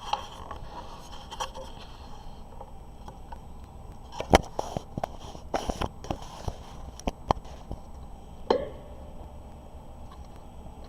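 Handling of a small plastic HO scale model freight car: a scatter of light clicks and taps, most of them bunched together in the middle, with a brief scrape at the start.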